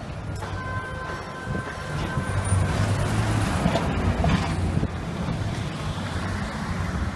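Engine running steadily under a rushing noise, with a low hum that grows louder for a few seconds in the middle.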